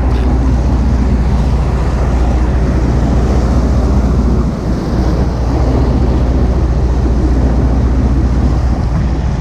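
Fishing boat's engine running steadily under way, a low hum under a rush of wind and water, with wind buffeting the microphone.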